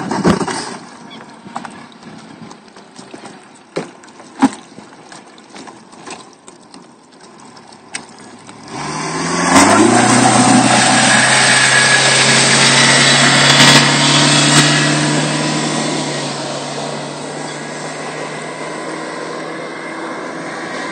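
Outboard motor of a Ranger Banshee Extreme boat coming up to speed: after a few knocks and clicks, the engine comes in about nine seconds in with a quick rise in pitch. It then runs at a steady pitch, fading slowly as the boat pulls away across the water.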